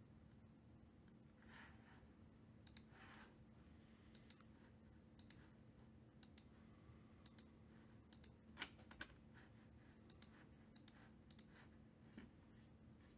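Near silence with faint, irregular clicks of a computer keyboard and mouse over a low steady hum.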